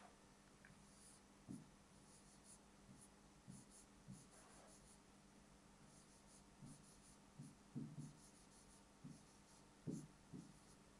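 Faint taps and short strokes of a pen writing on the glass of an interactive touchscreen whiteboard, spaced irregularly with near silence between them.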